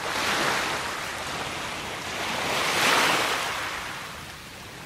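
Sea waves washing onto the beach. Two swells are heard: one at the start and a louder one about three seconds in, which then fades away.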